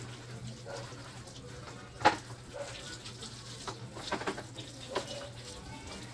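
Water from a garden hose splashing over a motorcycle, over a steady low hum. One sharp knock comes about two seconds in, and lighter clicks follow near the end.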